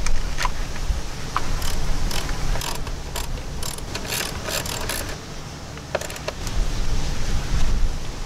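Irregular metallic clicking and clatter of hand work on the fuel rail and injectors of a 5.3 V8, in short clusters mostly in the first half, over a low steady rumble.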